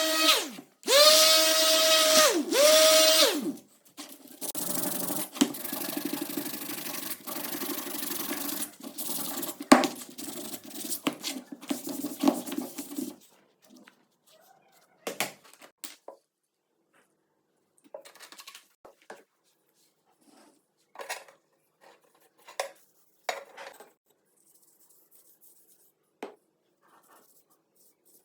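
Hand restoration work on metal and wood. A small power tool runs at a steady pitch in two short runs, each winding down when switched off. Then comes a long stretch of steady rubbing or sanding, and after it scattered light scrapes and taps.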